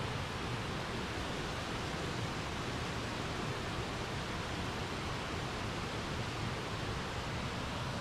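A waterfall's water rushing steadily, an even hiss of falling water with no breaks.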